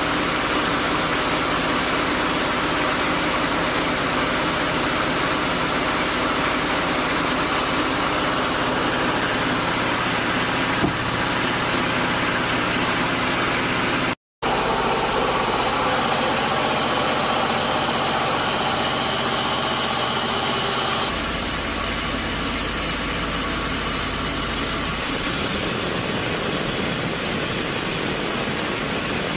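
Sawmill machinery running steadily, a loud even mechanical noise. It drops out for an instant about halfway through and changes tone abruptly twice near the end.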